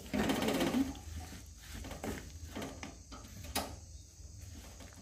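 A metal spoon scraping and stirring black sesame seeds and chopped dry fruits through melted jaggery in an iron kadai. It starts with a fast rattling scrape lasting under a second, then slower irregular scrapes, and a sharp click of the spoon on the pan about halfway through.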